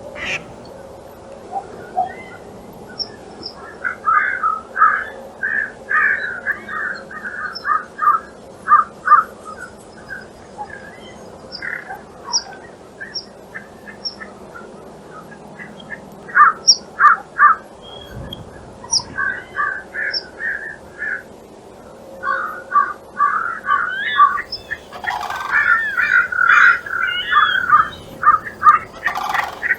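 Birds calling: runs of short, quickly repeated notes, with scattered thin high chirps between them.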